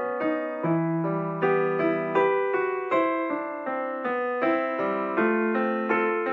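Background piano music, with single notes following one another at an even pace over held lower notes.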